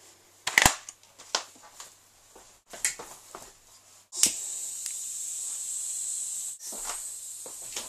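A few sharp clicks, then about four seconds in a lit firework starts hissing, a steady high hiss that carries on.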